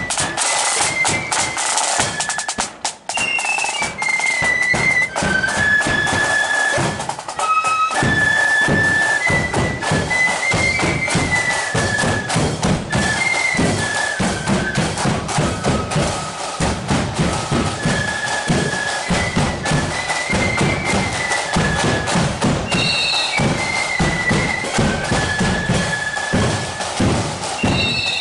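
Marching flute band playing a tune: flutes carry a high melody over snare and bass drums beating time.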